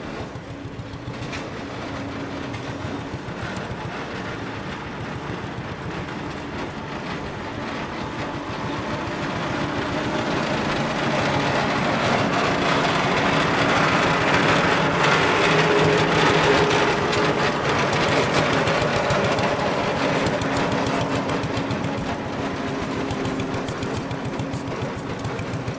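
Christoph & Unmack stationary engine on a mobile band saw running with a steady rapid beat. It grows louder toward the middle and eases off again as the machine comes close and moves on.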